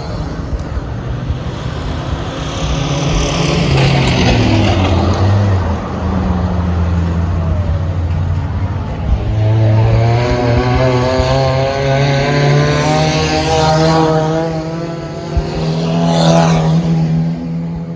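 Racing cars towing caravans run laps of an oval track, their engines swelling and fading as they pass, several times over. The pitch rises and falls as they pass, most clearly in the second half.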